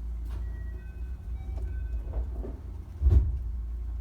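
Electric commuter train running with a steady low rumble, and a single loud knock about three seconds in.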